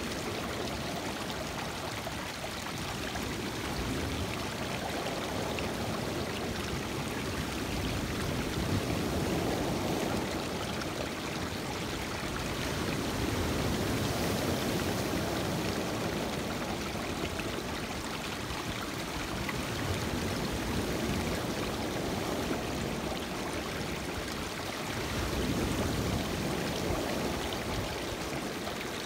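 Lake waves breaking on a rocky shore, with water washing and trickling over the pebbles close by. A continuous rush that swells and eases about every five or six seconds as the waves come in.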